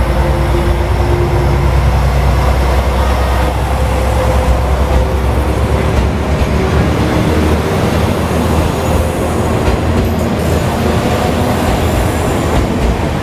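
Yufuin no Mori diesel multiple unit pulling out of the platform and rolling past. Its diesel engines hum low and steady for about the first half. Then the sound turns to the rumble and clatter of the cars going by on the rails.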